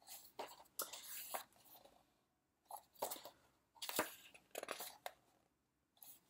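Pages of a large, heavy album photobook being turned by hand: paper rustling and flapping in a string of short bursts.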